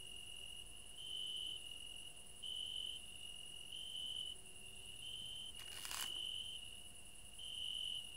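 Steady high-pitched insect trilling, like crickets, swelling a little more than once a second. About six seconds in, a DSLR camera shutter clicks once.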